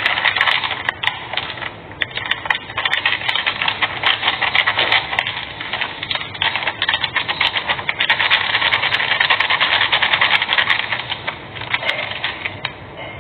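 Rapid scraping and rubbing at a kitchen counter as food is worked by hand. It goes in continuous fast strokes, with short pauses about two seconds in, around the middle and near the end.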